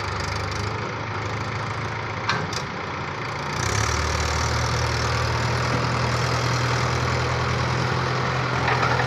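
Diesel engine of heavy machinery idling steadily. About three and a half seconds in, its note changes and gets louder. There is a brief click a little past two seconds.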